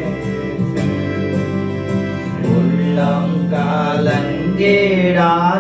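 Tamil Christian worship song being sung over a steady instrumental backing: a held sung note, then the next line of the song begins about three seconds in.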